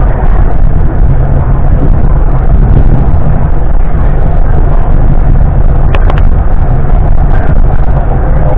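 Steady loud rumble of a moving passenger train heard from inside the car, its wheels running on the rails. A couple of brief sharp clicks come about six seconds in.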